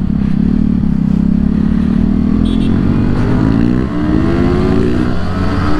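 Motorcycle engine running while riding, over a low wind rumble; its pitch climbs from about three seconds in as the bike accelerates.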